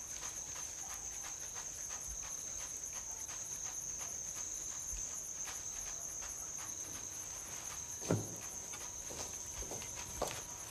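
Crickets trilling in one steady high-pitched tone, with faint scattered ticks and a single knock about eight seconds in.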